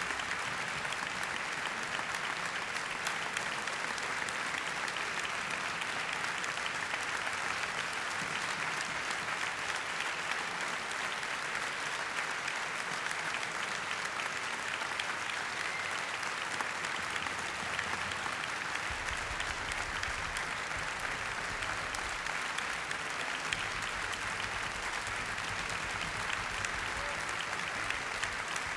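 Theatre audience applauding: steady, sustained clapping with no change in strength.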